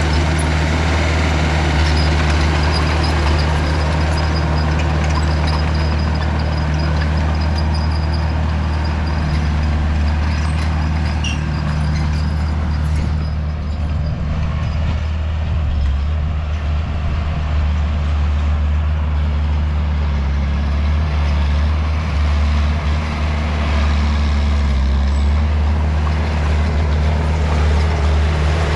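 Heavy diesel earthmoving machinery running steadily with a deep engine drone. A higher-pitched clatter and hiss over it is stronger at first and eases off about halfway through.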